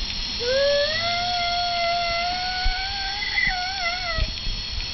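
A long animal howl that rises in pitch as it starts, holds, then wobbles up and down near the end before stopping, over the steady high whine of a small quadcopter's electric motors.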